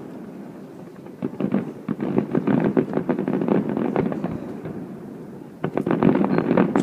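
Fireworks display: a dense run of rapid bangs and crackles that thins out about two-thirds of the way through, then a fresh loud volley of bangs near the end.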